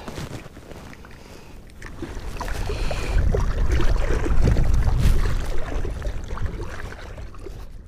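Wind rumbling on the microphone, building a couple of seconds in and easing off near the end, over water slapping and lapping against a small boat's hull as it is blown downwind across choppy water.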